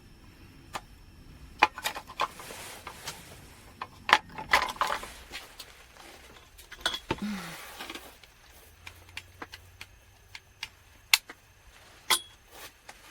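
Small objects and gear being handled close by: irregular clicks, clinks and light knocks with brief rustles in between.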